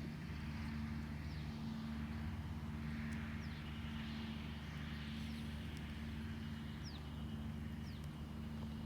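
A vehicle's motor running with a steady low hum, and short, high falling chirps now and then.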